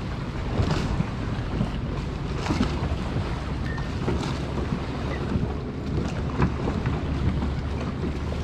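Wind rumbling steadily on the camera microphone, with scattered faint clicks.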